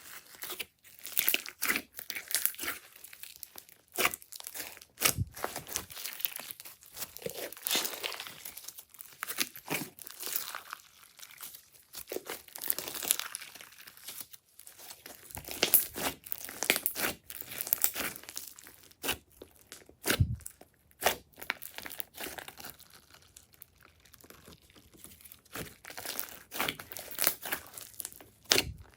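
Glossy slime being squeezed and stretched by hand, with irregular sticky crackles, pops and tearing sounds.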